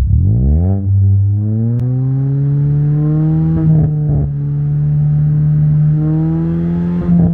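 Turbocharged Ford Fiesta ST engine through a KMS Hurricane exhaust, revved up quickly in the first second and then held at high, steady revs for a sound-level test. The revs waver briefly around four seconds in and again near the end.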